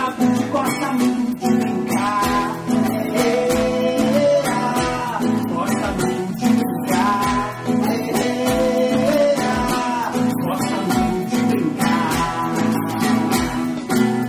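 Music led by a strummed acoustic guitar, with a melody line over it.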